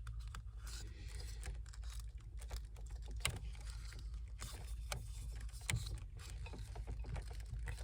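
Scattered small clicks and rustles of electrical wires being handled and worked through an opening, with two sharper knocks, one a little past three seconds and one near six seconds, over a steady low hum.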